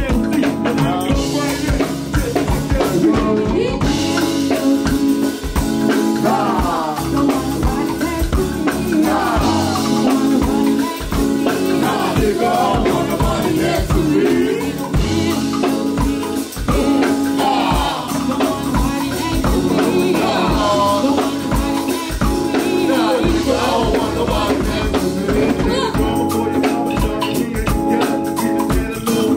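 Live band playing: singers' voices over a drum kit and hand percussion keeping a steady beat.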